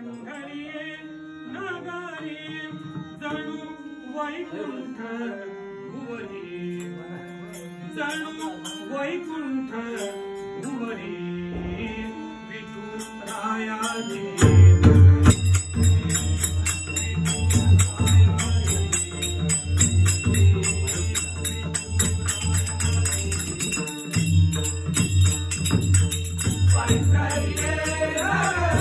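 Group devotional bhajan singing with harmonium; about 14 seconds in, the pakhawaj barrel drum and small hand cymbals come in, and the music gets much louder with a steady drum beat and constant cymbal clinking.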